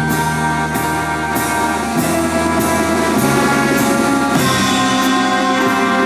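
A naval military band playing live: brass and drum kit with held chords over a steady beat.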